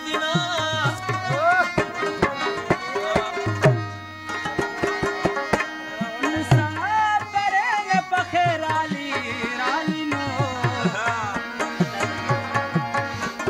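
Live Pashto folk music: tabla playing a rhythm with deep, pitch-bending bass strokes under a bending melodic line, with a harmonium. The music thins briefly about four seconds in.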